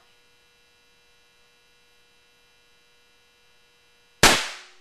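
Percussion caps on a .36-calibre three-barrelled Duck Foot volley pistol firing with no powder loaded, a single sharp crack a little over four seconds in that fades within about half a second: a cap-only test to see that fire reaches all three barrels. Before the shot, only a faint steady electrical hum.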